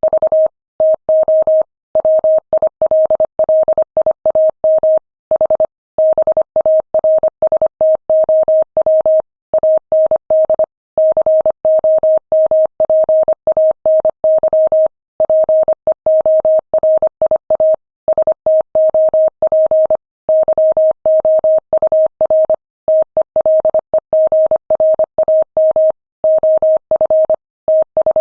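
Morse code sent at 25 words per minute: a single steady mid-pitched tone keyed on and off in quick dots and dashes, with short gaps between letters and longer pauses between words.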